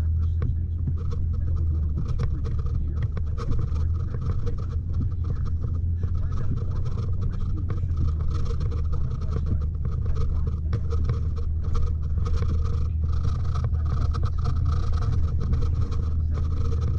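Nissan pickup truck driving in four-wheel drive low over a rough, slushy road, heard from inside the cab: a steady low engine and drivetrain drone with scattered knocks and scrapes.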